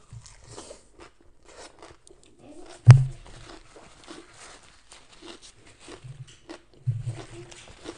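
Close-up chewing and crunching of a mouthful of raw kohlrabi salad and fresh salad leaves, with many small crisp crackles. A sudden loud thump about three seconds in, and a smaller one near seven seconds.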